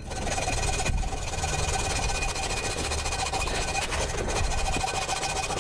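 Hacksaw with a dull blade cutting a cheap aluminium lens adapter in rapid, steady, even strokes: a continuous rasping, sped up.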